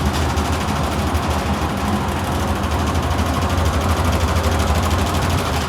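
Ducted VRF indoor unit's belt-driven blower running with a loud, steady low rumble, the whole unit shaking. The cause is a loose, worn fan belt that leaves the drive unbalanced.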